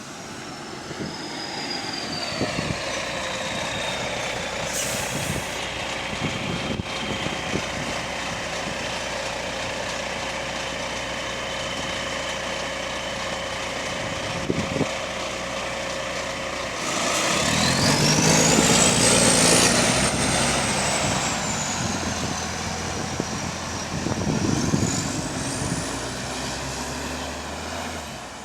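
Volvo B9TL double-decker bus with a leaking exhaust. It comes in with a falling whine and runs steadily at the stop. About 17 s in there is a sudden hissing surge, the loudest part, as it pulls away, with a whine that climbs, falls back and climbs again.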